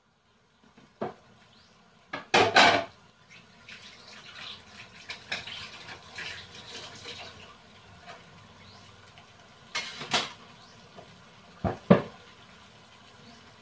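Pot of chicken legs boiling on the stove, the water bubbling, with sharp clanks of kitchenware: a loud double clatter a couple of seconds in and two more pairs of knocks near the end.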